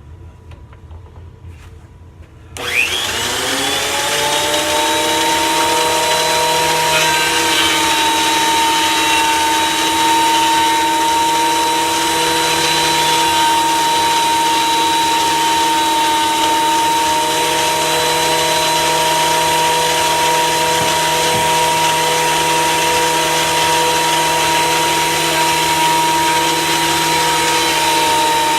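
Delta 22-540 benchtop thickness planer switched on about two and a half seconds in, its motor whining up to speed, then running steadily at full speed.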